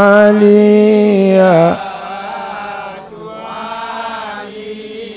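A male lead voice chants an unaccompanied Comorian devotional qasida, holding one long note on 'aliya' that drops away in a falling slide about one and a half seconds in. Softer, blended voices then carry on quietly, like a group answering.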